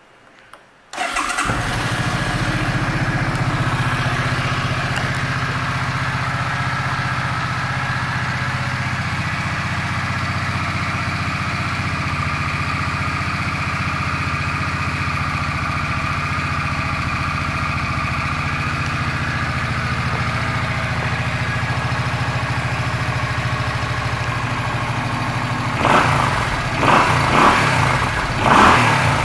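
2005 Suzuki Boulevard C50's 805 cc V-twin starting about a second in, then idling steadily. Near the end the throttle is blipped three times in quick succession, each a short rev.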